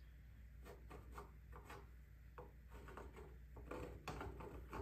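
Faint hand rubbing and scraping on a wooden frame: a string of short, irregular strokes that get a little louder near the end, over a low steady hum.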